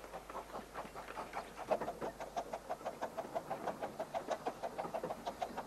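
Steam exhaust beats of a one-third-scale, 15-inch-gauge steam locomotive working a train, an even chuffing at about five beats a second.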